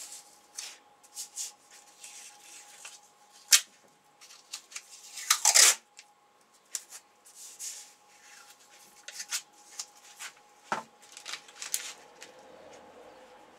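Adhesive tape being pulled off its roll in short rasping pulls, the loudest about five seconds in, with scattered clicks and crinkles from handling a plastic blister pack of glue. A faint steady hum sits underneath.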